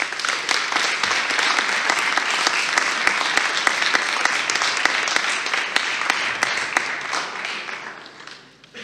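Audience applauding, dense clapping that dies away over the last couple of seconds.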